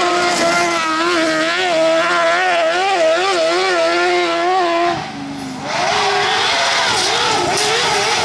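High-revving engines of car-cross buggies racing on a loose gravel stage, the pitch rising and falling quickly as the throttle is worked. About five seconds in the sound dips briefly, then a different buggy's engine takes over.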